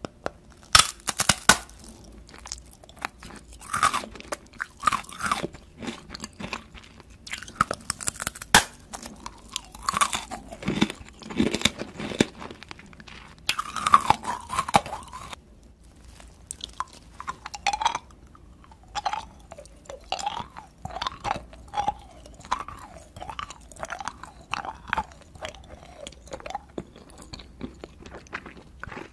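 Close-miked biting and crunching of a brittle dalgona (Korean honeycomb sugar candy), with sharp cracking snaps through the first half. Softer, quicker chewing and mouth noises follow in the second half.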